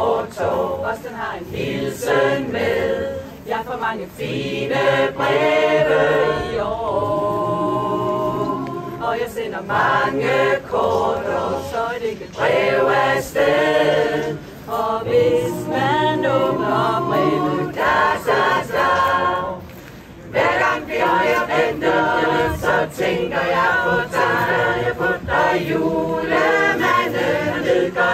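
Mixed choir of men's and women's voices singing a cappella, in phrases with a long held chord about seven seconds in and a short breath pause about twenty seconds in.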